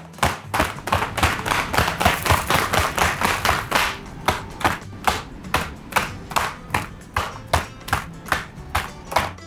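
A steady run of sharp knocks or taps, about three a second, busier and louder from about two to four seconds in.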